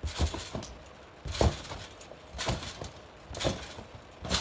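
Bouncing on a trampoline: repeated thumps of feet landing on the mat and springs, roughly one a second, the loudest about a second and a half in.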